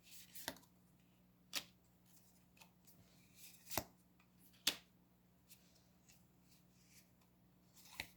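Lenormand cards being handled, drawn from the deck and laid out: about five short, sharp card snaps spread a second or more apart, with a faint rustle in between.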